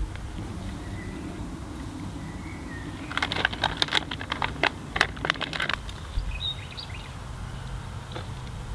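A quick, irregular run of sharp crackling clicks for about three seconds, over a steady low outdoor rumble, with a few faint chirps.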